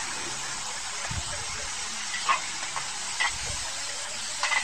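Meat sizzling in a large steel wok over a wood fire: a steady hiss with heavy steam rising, with a few brief louder sounds about two and three seconds in.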